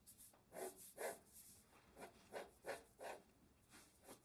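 Faint scratchy strokes of a pencil drawing lines on paper, about two strokes a second.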